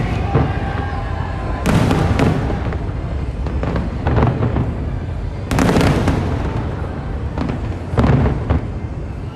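Aerial fireworks bursting without a break: a continuous run of booms and crackles, with the heaviest salvos about two, six and eight seconds in.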